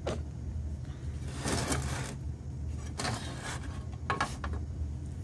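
Three short scraping, rustling handling noises on a workbench, the last with a brief light metallic ring, over a steady low hum.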